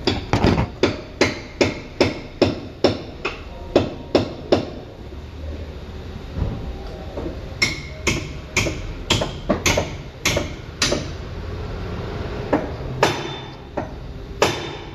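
Hammer blows in quick runs of two to three strikes a second: about a dozen, a pause of a few seconds, then about eight more, with a few scattered blows near the end.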